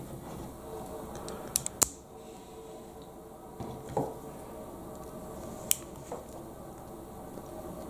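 LEGO plastic pieces being handled and pressed together: a quick run of three sharp clicks about one and a half seconds in, then single clicks about four and six seconds in, over a faint steady hum.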